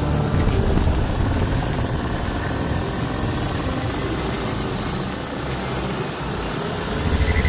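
Low, fluttering rumble of a helicopter hovering overhead, swelling louder near the end.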